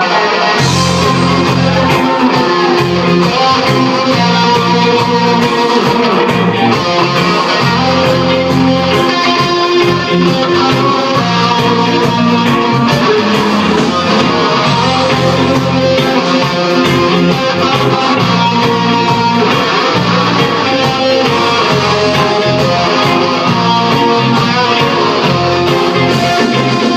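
Live rock band playing loud, with electric guitars strummed over bass guitar and drums. The full band comes in right at the start.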